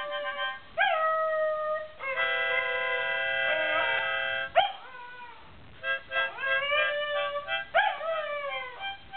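A dog howling along to a harmonica. The harmonica holds a steady chord for about two seconds, and the dog's howls come several times, each jumping up in pitch and then sliding down.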